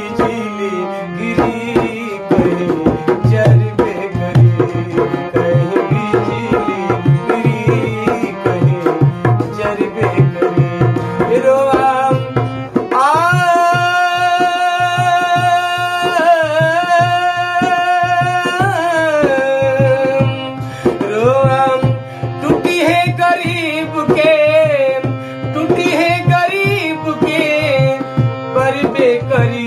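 A man singing a folk song over a harmonium and a dholak drum played in a brisk, steady rhythm. He holds long, wavering notes for several seconds near the middle.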